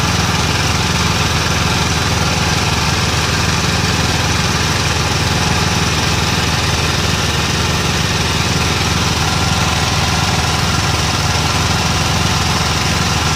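Engine of a traditional oil-well drilling rig running steadily at a constant speed, loud and unchanging throughout.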